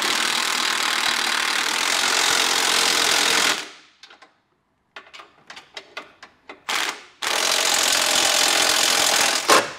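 Cordless impact wrench hammering bumper-beam nuts tight. It runs in two long stretches, the first about three and a half seconds and the second about two, with scattered clicks and a short burst between them and quick bursts near the end.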